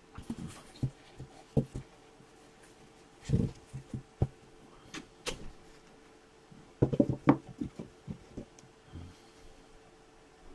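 Scattered light knocks and clicks of hard objects being handled, with a cluster of several knocks about seven seconds in, over a faint steady hum.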